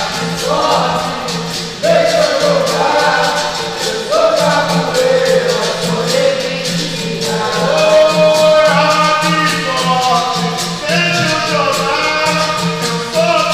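Capoeira roda music: berimbau and pandeiro with group singing and hand clapping keeping the rhythm.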